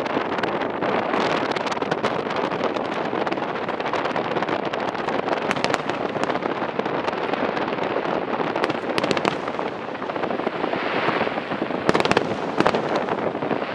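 Fireworks display: a dense, continuous rumble and crackle of many shells bursting, with a few sharper bangs about nine seconds in and again near the end.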